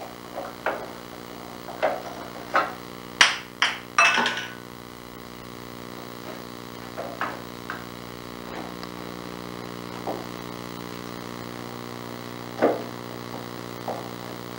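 Wooden knocks and clatters of small drawers in a wooden chest being pulled and rattled by a pet parakeet: a quick run of about ten knocks in the first four seconds, then a few single knocks spaced out, over a steady low electrical hum.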